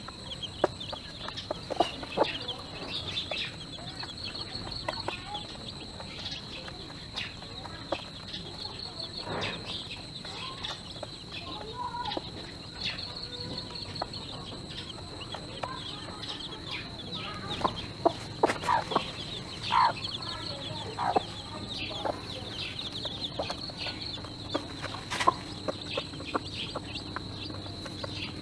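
A hen clucking now and then while her chicks keep up a constant high peeping. Short taps of beaks pecking grain on the feeder tray are scattered throughout.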